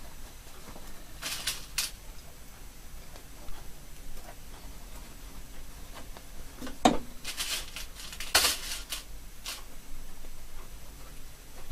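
Hands folding and smoothing shirt fabric at a sewing machine: short, scattered rustles of cloth, with a light knock about seven seconds in and a cluster of rustles around eight seconds.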